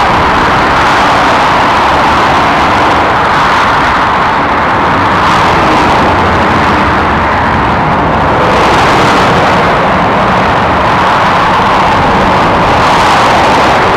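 Heavy motorway traffic: a steady rush of tyre and engine noise from cars, vans and lorries, swelling and easing as individual vehicles go by.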